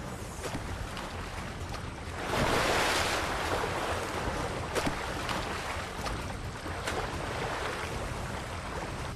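Sea water rushing and surging as a wave pushed up by killer whales washes across an ice floe, swelling loudest about two to three seconds in, with a few short sharp splashes later.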